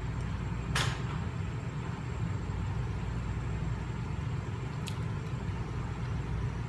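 Steady low background hum, with a soft knock about a second in and a faint click near five seconds from parts being handled during the wheel assembly.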